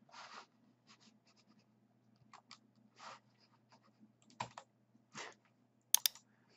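Faint scattered clicks and taps of a computer mouse and keyboard, with a few short soft breaths and a faint steady low hum underneath.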